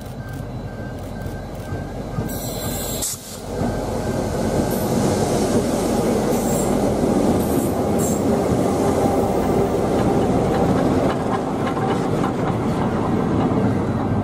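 Two Queensland Rail 2400 class diesel locomotives passing close by, towing a steam locomotive. Their engines run over the noise of steel wheels on the rails, growing louder as they come level, with a brief drop about three seconds in.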